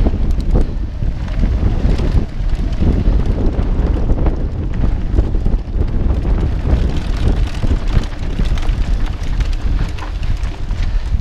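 Wind buffeting a GoPro's microphone on a mountain bike's handlebar, over the crunch of tyres on a rocky dirt trail and the rattle of the bike over small stones.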